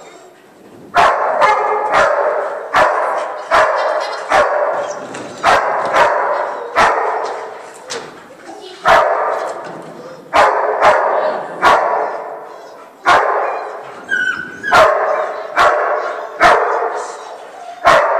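A dog barking over and over, roughly once a second, with short pauses now and then. Each bark echoes around a large indoor hall.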